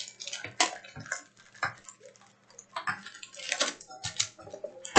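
Baseball trading cards and their plastic packaging being handled on a table: irregular light clicks and taps, with a faint low steady hum underneath.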